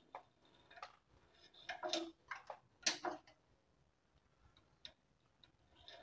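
Instant gas water heater's spark igniter clicking faintly a few times at irregular intervals as its magnetic water-flow sensor is pushed up by hand, a sign that the ignition works.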